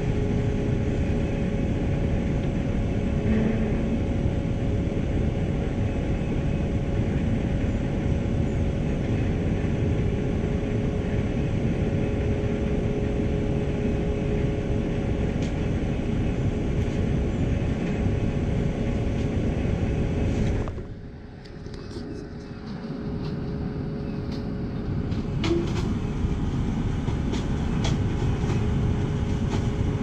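Heavy diesel truck engine running steadily with a steady whine over the rumble. The sound drops away briefly about two-thirds of the way through, then comes back.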